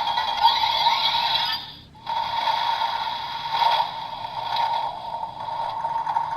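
Electronic sound effect played through the DX Dark Seiza Blaster toy's speaker: a hissing blast effect over a steady tone, breaking off briefly about two seconds in and then running on.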